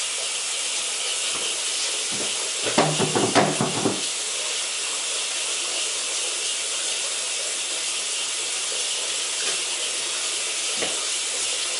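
A steady hiss, with a short spell of clattering about three seconds in and a single click near the end.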